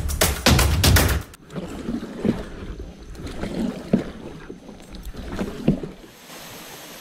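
Background music with a heavy beat that cuts off about a second in, followed by scattered knocks and bumps in an aluminium boat being paddled on the water.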